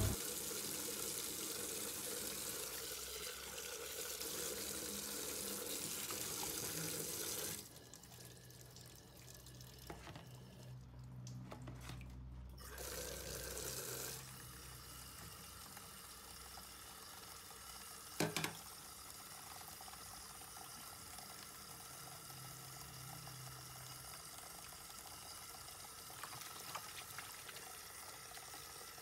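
Tap water running into a stainless-steel sink as wet fish are rinsed and handled under the stream. The flow sounds louder for about the first quarter, then runs softer. A single knock comes about two-thirds of the way through.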